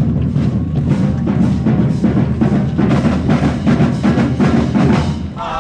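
High school marching band drumline playing a fast cadence, with bass drums and rapid snare strokes. Near the end the drums stop briefly and a short, high, wavering call rises over the gap.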